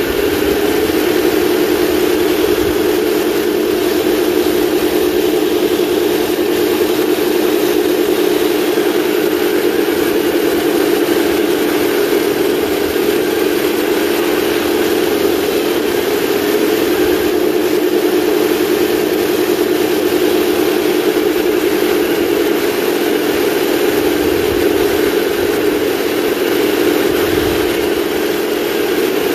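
1/16-scale RC model tanks driving: a steady, even whirring hum from their electric drive motors and gearboxes, with the noise of the tracks rolling over gravel.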